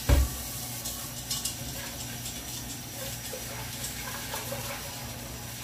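A single knock, then a few faint light clicks over a steady low hum.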